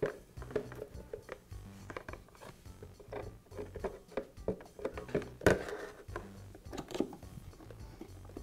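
Plastic housing half of a Bostitch air compressor being worked into place by hand over the motor and pump, with scattered plastic knocks and clicks as it is shifted and pressed on. The loudest knock comes about five and a half seconds in.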